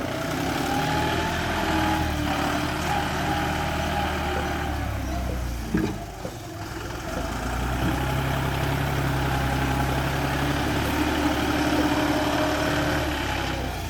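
Bulldozer's diesel engine running steadily, its pitch shifting a little, with a short knock and a brief dip in loudness about six seconds in.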